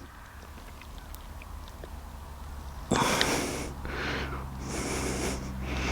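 A man breathing close to the microphone: four noisy breaths about a second apart, starting about halfway in, over a faint low hum.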